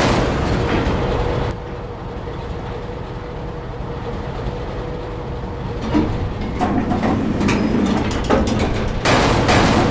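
Diesel locomotive machinery clanking and ratcheting over a rumble. It drops to a quieter steady hum after about a second and a half. From about six seconds clanks and rumbling build again, and grow loud near the end.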